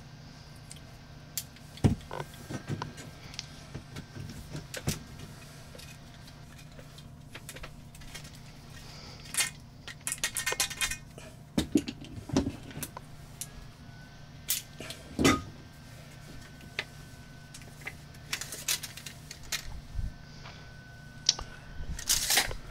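Scattered clicks, light knocks and brief rattles of short copper pipe pieces and brass fittings being handled on a tabletop, over a low steady hum.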